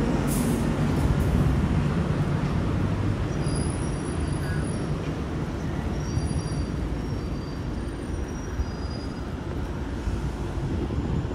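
Steady low rumble of a moving vehicle, slowly easing off, with a few faint high squeals.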